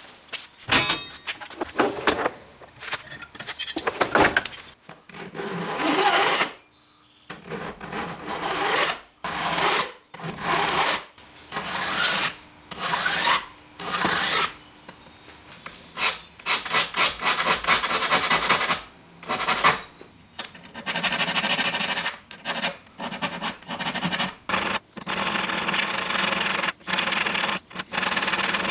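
Hand file rasping across the steel teeth of an old Japanese maebiki saw in repeated strokes with short pauses between them, sharpening the teeth.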